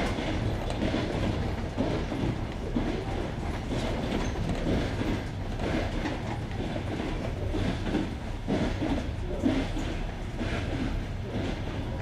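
Passenger train wheels running over jointed rails, heard from aboard the moving train: a steady rumble with a repeating clickety-clack as the wheelsets strike the rail joints.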